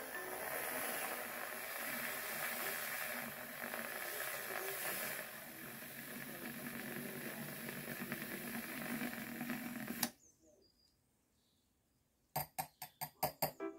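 Handheld battery milk frother whirring as its wire whisk froths milk in a glass, a little quieter about halfway through, then cutting off suddenly. After a short silence, a quick run of sharp taps.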